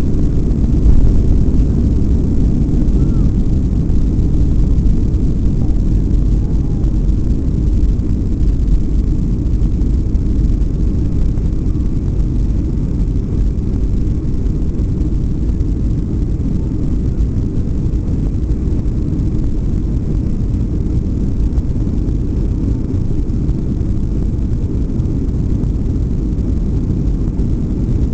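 Boeing 757-200's jet engines and rushing air heard from inside the cabin during the climb-out after takeoff: a steady, loud low rumble that eases slightly toward the end.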